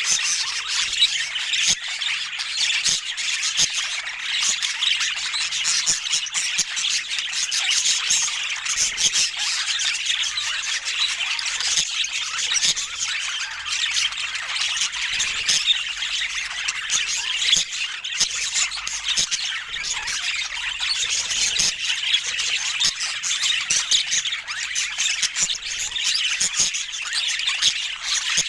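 A flock of budgerigars chattering: a dense, continuous mass of warbles, squawks and chirps with no pause.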